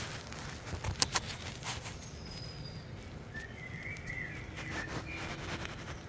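Birds chirping and whistling in short calls from a bird video playing through a television's speakers, with a couple of sharp clicks about a second in.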